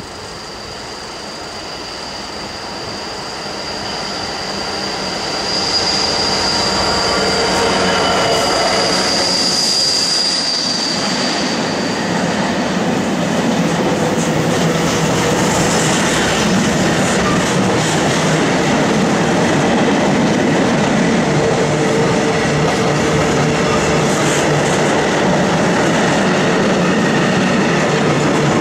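Diesel freight locomotive approaching and passing, growing louder over the first six seconds, with a high, steady wheel squeal that fades out about twelve seconds in. Then a long rake of loaded curtain-sided wagons rolls past, with steady wheel rumble and clatter over the rail joints.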